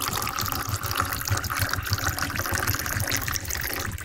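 Water splashing and sloshing in plastic tubs as they are scrubbed with a brush and rinsed out, a steady wet noise full of small rapid scrapes and drips.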